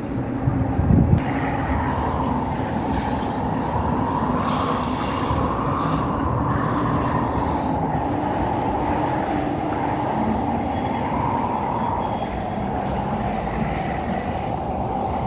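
Blizzard wind blowing steadily, rumbling on the microphone, with a slowly rising and falling whistle and a hard gust thump about a second in.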